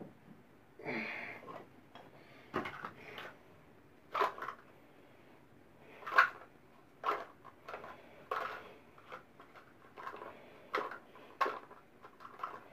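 Irregular crinkling and clicking as a small plastic bag of faucet repair-kit parts (springs and seats) is handled.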